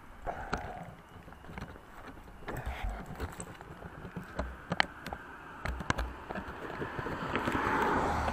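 Irregular clicks and knocks of handling right next to the camera's microphone. A rushing noise swells up near the end.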